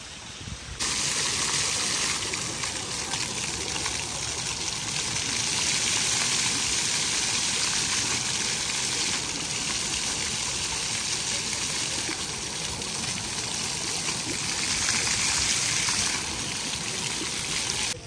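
Steady rush of running water, a dense hiss strongest in the highs, that starts abruptly about a second in and cuts off just as abruptly at the very end.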